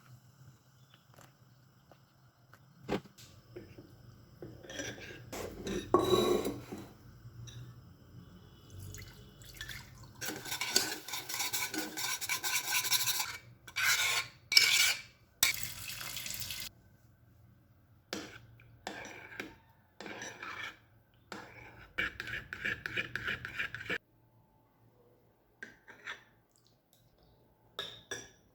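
Kitchen utensil sounds: a spoon knocking and scraping in a bowl, dishes clinking, and stretches of water being poured, while koko (fermented guinea corn pap) is mixed. The sounds come in separate bursts that start and stop abruptly.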